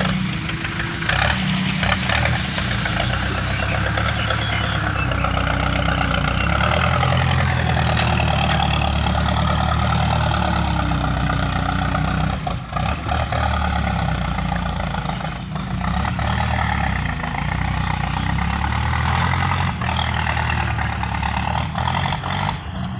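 Vehicle engine running steadily, its pitch rising and falling as the revs change.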